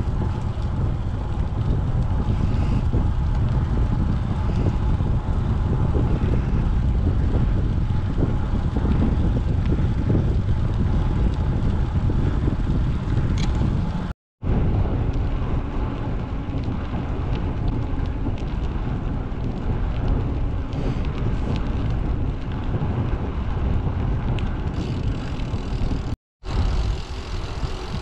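Wind rushing over the microphone of a camera riding along on a bicycle, a steady low rumble. It cuts out for a moment twice, about halfway through and near the end.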